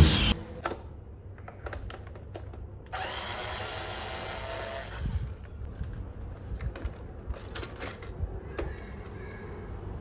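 Cordless electric screwdriver running steadily for about two seconds, backing out a screw that holds a robot vacuum's wheel module. Short clicks and knocks come before and after it as the module is handled.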